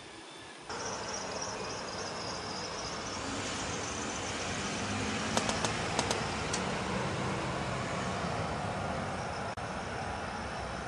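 Steady outdoor background noise with a low rumble, starting abruptly about a second in, with a short cluster of sharp clicks about five and a half to six and a half seconds in.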